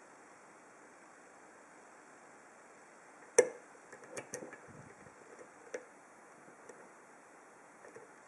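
Hook pick and tension bar working the pins of a Viro 50mm padlock: one sharp click about three and a half seconds in, then a few fainter clicks and ticks.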